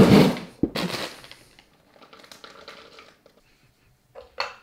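Kitchen food-prep handling sounds: a loud rustle at the start, then faint crinkling. Near the end come two quick shakes of a salt shaker over a bowl of cream of rice.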